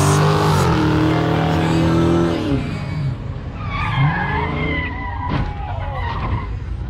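A Dodge Charger and a pickup truck accelerating away down a drag strip, their engines loud with a falling note that drops off after about two and a half seconds. Then tyres squeal in wavering tones from far down the track.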